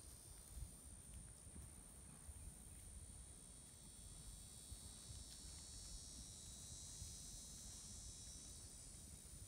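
Faint, steady chorus of insects singing, a constant high-pitched drone, over a low rumble.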